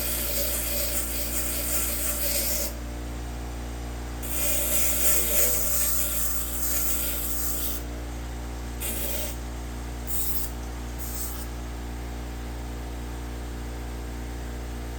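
A grinder running steadily while a small piece of hacksaw blade is ground against it. There are two long grinding passes, then three short touches about a second apart, with the motor humming alone between them.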